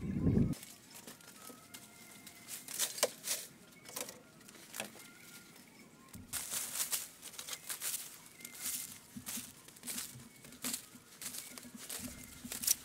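Green mangoes being handled and sorted in woven wicker baskets: rustling of leaves and soft knocks and crinkles of fruit against the wicker, with faint birdsong behind. A brief dull thump right at the start.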